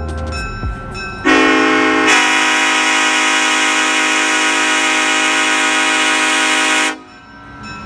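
Nathan Airchime K5LLA five-chime locomotive air horn, with its 1L bell reversed, blown in one long chord of about five and a half seconds. It starts a little over a second in, swells fuller about a second later, and cuts off sharply near the end.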